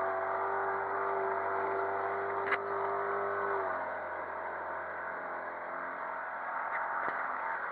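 Yamaha outboard motor running under way on a small inflatable boat, a steady engine note over the rush of water. The note drops lower and softer a little past halfway. A single sharp knock sounds about two and a half seconds in.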